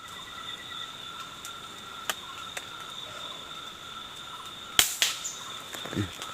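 A single sharp crack about five seconds in, like the shot of a hunting weapon, over the steady high buzzing of forest insects, with a few faint clicks before it.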